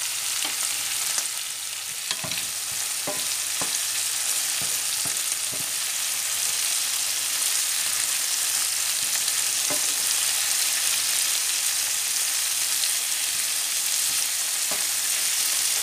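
Diced vegetable sauce of onion, green pepper and tomato sizzling steadily in a frying pan, growing slightly louder, with a few light clicks from a wooden spoon in the pan.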